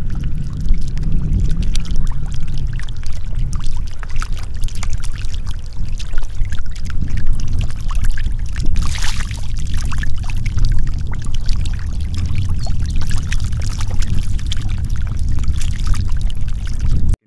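Water flowing over a shallow flooded field, full of small splashes and slaps as a mass of fish thrash in it, over a heavy low rumble.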